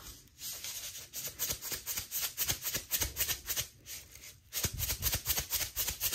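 Salt shaker shaken over a cooking pot: a quick, even rattle of about five shakes a second, with a short pause about four seconds in.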